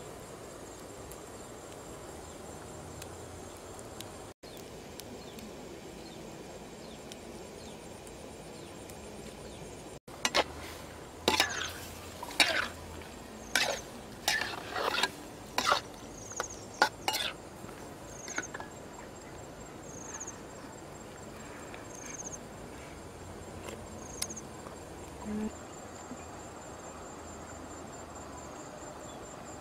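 A metal utensil scraping and clanking against a metal wok as squid is stir-fried: a quick run of about a dozen loud strokes in the middle. A steady chirring of insects runs underneath.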